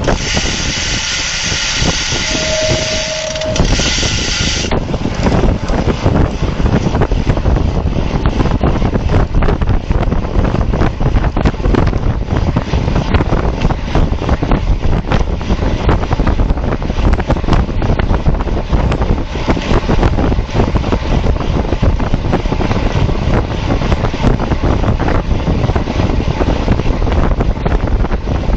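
Heavy wind buffeting on the microphone of a bicycle-mounted camera during a road race. In the first few seconds there is a brighter hiss with a short steady tone, then the rushing noise runs on evenly.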